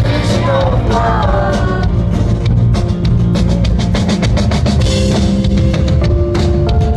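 Indie rock band playing live, loud and rough through a phone's microphone: a sung line in the first two seconds, then guitar and bass over busy, rapid drumming.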